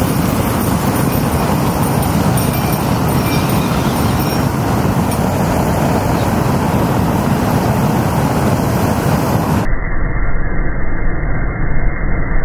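Flamethrower fire blasting over a plastic toy car: a steady, loud rushing of flame that turns duller and deeper about ten seconds in.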